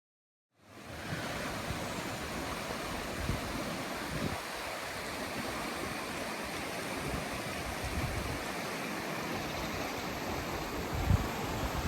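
Mountain stream flowing over rocks: a steady rush of water that fades in from silence within the first second, with a few low bumps, the strongest near the end.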